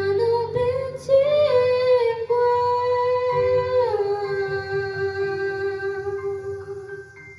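A female voice singing a few long, drawn-out notes over a soft musical accompaniment, ending on a held note that fades away as the music stops near the end.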